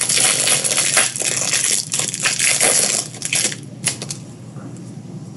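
Foil wrapper of a 2018 Bowman Draft card pack crinkling as it is handled and opened. The crinkling stops after about three and a half seconds, and a single light click follows.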